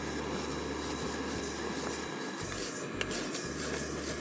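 Whole white urad dal being dry-roasted in a stainless steel kadai and stirred with a wooden spatula: a steady rustling, rattling scrape of the dry grains against the pan, over a low steady hum, with a small click about three seconds in.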